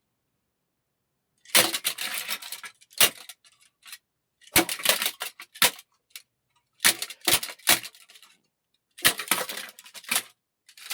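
Foley performance of small hard objects clattering and clinking, in about five short bursts of rapid sharp strokes separated by silent gaps.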